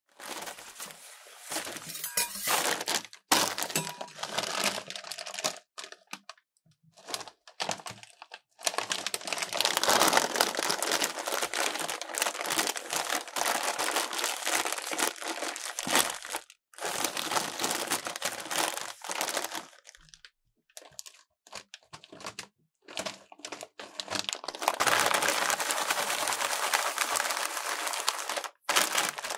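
Crinkling and crunching of Takis rolled tortilla chips and their bag as they are handled and crushed. The sound comes in dense stretches of crackle that stop abruptly several times.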